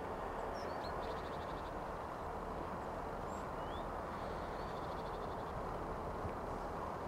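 Small birds giving short chirping calls, some rising and some falling, with two brief trills, over a steady low rumble.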